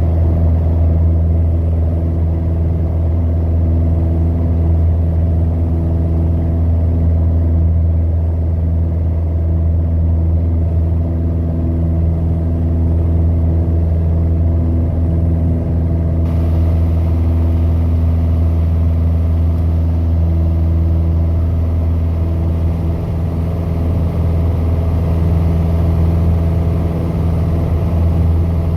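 Piper PA-28's single piston engine and propeller running at a steady power setting, a constant low drone with no change in pitch.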